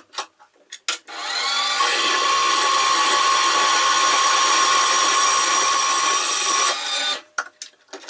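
Small Contimac metal-cutting bandsaw started up and cutting a test piece: its motor and blade whine rises briefly to a steady pitch, runs steadily for about six seconds, then cuts off abruptly. There are a few clicks and knocks from the vise and handle just before it starts and after it stops.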